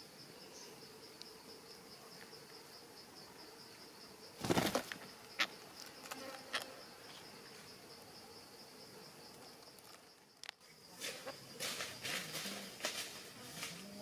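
A short burst of parakeet wingbeats about four and a half seconds in, over a steady, fast-pulsing insect drone. A few single clicks follow, and in the last few seconds a run of sharp clicks.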